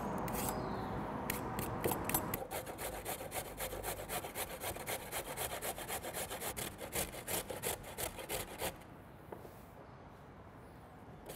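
A vegetable peeler scrapes along a carrot. A carrot is then rubbed up and down a stainless steel box grater in quick, even strokes, which stop a few seconds before the end.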